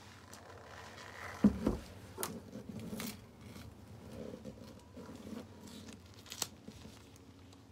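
Gloved hands peeling a plastic tear-off seal from the top of a paint can: two knocks about a second and a half in, then scattered sharp clicks and soft crinkling of the plastic.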